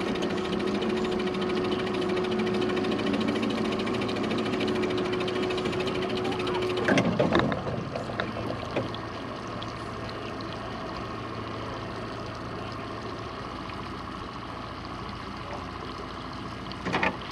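A small motor whines steadily, then cuts off about seven seconds in with a short clatter. After that, a lower, quieter engine hum and water noise run on, with another brief clatter near the end.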